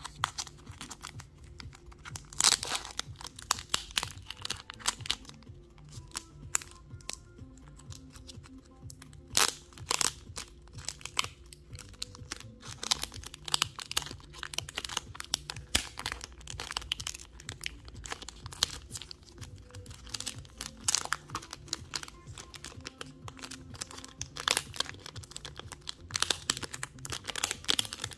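Clear plastic card bag and sleeves crinkling and rustling in the hands, with irregular sharp crackles throughout.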